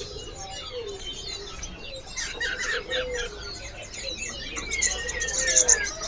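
Many small caged songbirds chirping and twittering at once, their short calls overlapping and growing busier from about two seconds in, with a lower wavering call running underneath.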